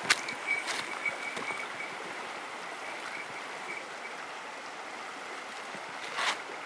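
Outdoor ambience: a steady hiss, with a few scattered crunching footsteps on gravel and grass. A faint, high, broken chirping tone sounds in the first second and a half.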